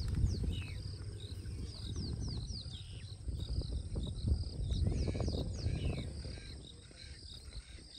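Birds calling in quick, falling chirps over a steady high insect drone, with a strong low-pitched noise underneath that dies down about two-thirds of the way through.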